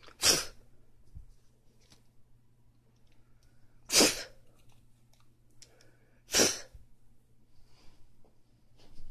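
Three short, sharp, breathy puffs from a person, like sneezes: one just at the start, one about four seconds in, one about six and a half seconds in, over a faint steady low hum.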